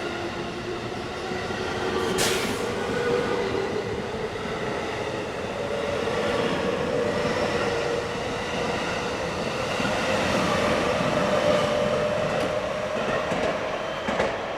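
Electric train running on its inverter-driven motors, their whine rising slowly in pitch as it accelerates, over steady rail and wheel noise, with one sharp clack about two seconds in.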